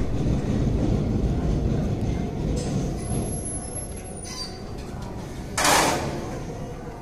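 Diamond-shaped train pantograph on a demonstration stand being raised, with a short, loud hiss of air about five and a half seconds in as it springs up. A faint high tone sounds for about a second before it, over a steady low background rumble.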